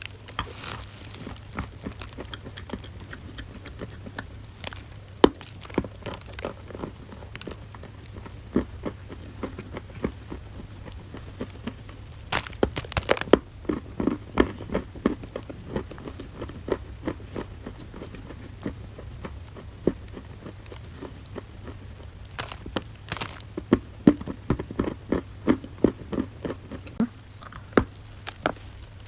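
Crunchy ASMR clay being crushed: sharp single cracks, with dense runs of crackling crunches about halfway through and again in the last third.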